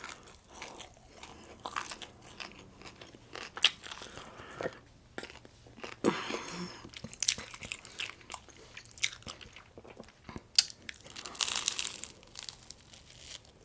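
Close-miked eating: chewing and biting with crunchy bites and wet mouth clicks, scattered irregularly, with a couple of longer crunching spells about six and eleven seconds in.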